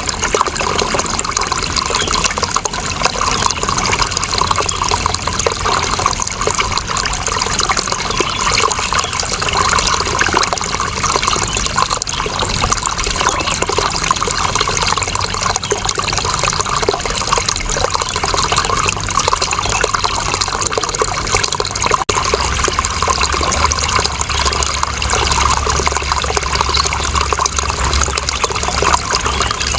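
Steady flowing, splashing water, an even continuous rush of running water.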